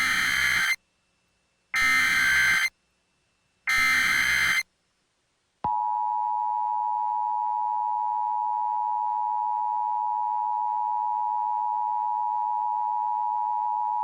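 Emergency Alert System SAME header: three short bursts of screechy digital data, each about a second long. About six seconds in, the two-tone EAS attention signal starts and holds as one steady harsh tone.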